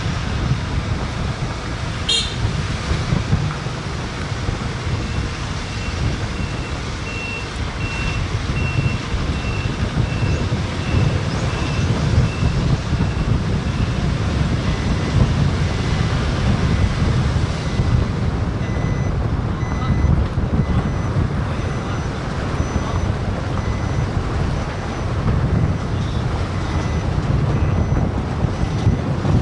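Vehicle driving along a concrete road, heard from on board: a steady low engine and tyre rumble with wind buffeting the microphone. A faint high pulsing tone, about two beeps a second, runs through much of it, and a single sharp click sounds about two seconds in.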